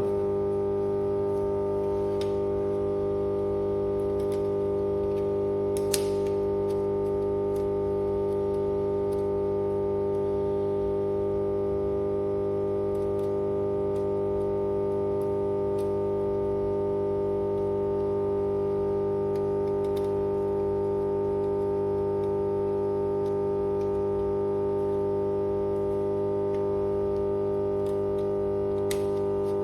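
Power transformer humming steadily: one constant electrical drone with several overtones, unchanging throughout. A brief click about six seconds in.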